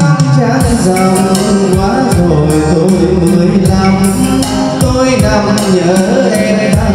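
Karaoke song played loud through the NT 4040 portable karaoke speaker with twin 40 cm woofers: a backing track with a steady drum beat and a melody, and a man singing into a wireless microphone.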